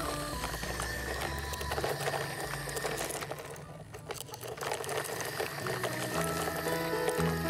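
Plastic toy truck rolled over gritty dirt ground, giving a rapid rattling whir from its wheels, briefly dipping midway.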